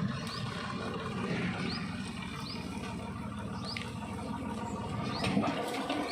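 Heavy diesel machinery running with a steady low rumble, a few short high chirps sounding over it.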